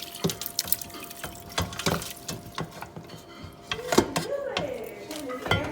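Kitchen clatter: a string of clinks and knocks from pots, dishes and utensils, with some water splashing at the sink.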